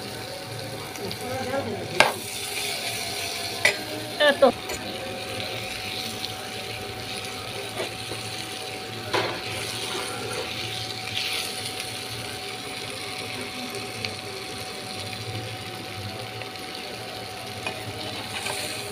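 Spiced bitter gourd pieces frying in a metal kadhai, a steady sizzle, as a metal spatula stirs them: sharp knocks and scrapes of the spatula against the pan, several in the first five seconds and another about nine seconds in.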